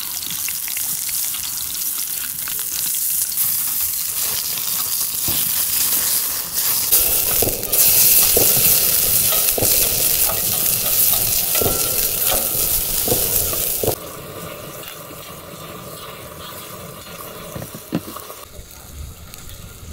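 A thick piece of steak searing in a hot pan over an open flame, sizzling and spitting, louder in the second half. It cuts off suddenly about two-thirds of the way through, leaving a quieter hiss with a few crackling ticks from the wood fire.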